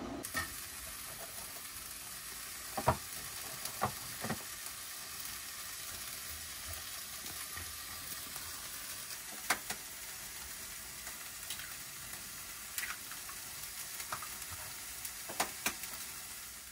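Scrambled eggs sizzling steadily in a frying pan on a gas stove, stirred with a spatula that now and then clicks and scrapes against the pan.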